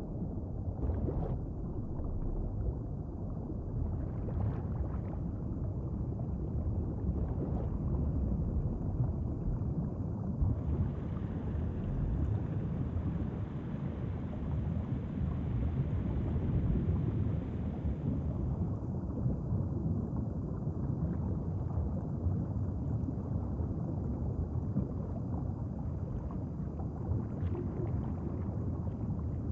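A low, steady rumbling underwater ambience, with a brighter hiss added from about ten seconds in until about eighteen seconds in.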